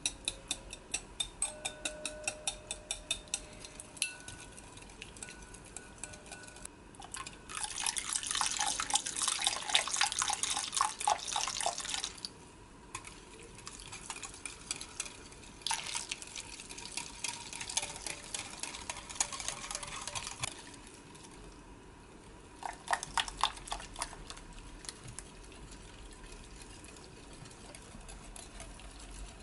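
Wire whisk beating eggs and yolks for egg tart custard in a glass bowl. It starts with light, regular ticks of the wires on the glass at about four a second, then comes in three spells of faster, louder whisking through the liquid, with pauses between.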